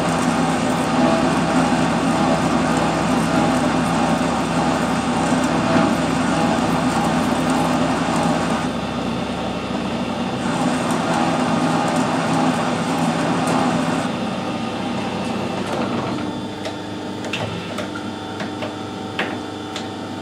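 Metal lathe running with a steady hum, its cutting tool working into a spinning steel bar with a hissing cutting noise. The cutting noise eases off over the last few seconds, with a few light clicks near the end.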